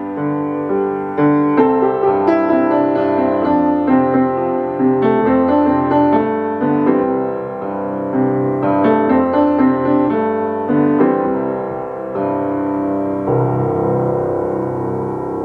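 Keyboard instrument playing a gentle melody over chords, ending on a long held chord near the end.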